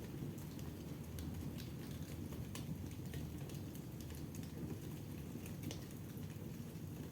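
Wood fire burning in a fireplace: a steady low rush of flames with irregular sharp crackles and pops.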